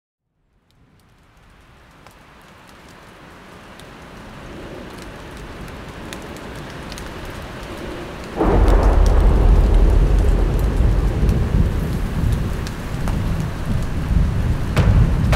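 Thunderstorm: rain fades in from silence and builds slowly, then about eight seconds in a loud clap of thunder breaks in and goes on as a deep, uneven rumble under the rain.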